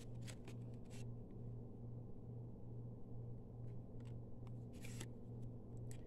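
Faint rustling and light flicks of small paper card pieces and tags being handled and shuffled by hand, a few times, over a steady low hum.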